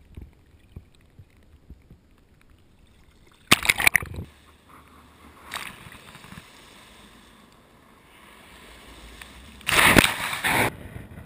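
Shallow sea water sloshing around a camera held at the waterline, with two loud splashes as waves wash over it, about three and a half seconds in and again near the end, and a smaller splash between them.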